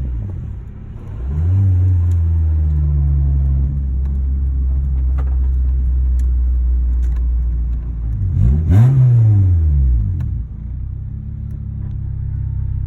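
Car engine idling and being revved: one rev about a second and a half in, and a sharp rev that climbs and falls back about eight to ten seconds in.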